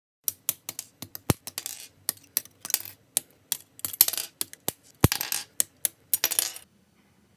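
Small hard plastic parts of an SD Gundam model kit being handled, clicking and clattering together. A quick irregular run of sharp clicks mixed with short scraping rustles stops near the end.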